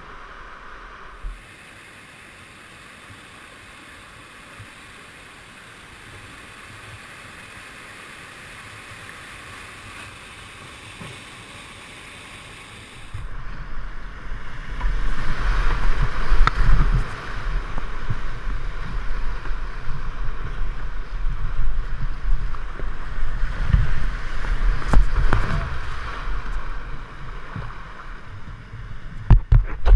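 Steady rush of a whitewater rapid at first; about 13 seconds in it switches to loud, close rushing and splashing of whitewater around a canoe running the rapid, with low buffeting thumps of water and wind hitting the camera, and a few sharp knocks near the end.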